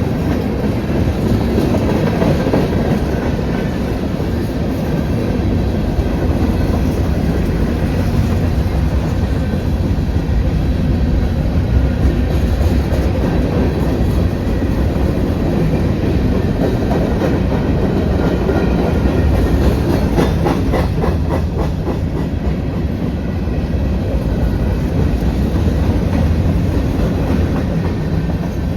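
CSX manifest freight train rolling past, a steady rumble with the wheels clicking rhythmically over the rail joints, the clicks clearest about two-thirds of the way in.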